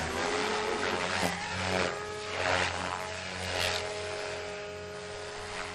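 SAB Goblin 500 electric RC helicopter in flight: a steady rotor and motor drone with a whooshing surge from the blades about every second, easing off toward the end.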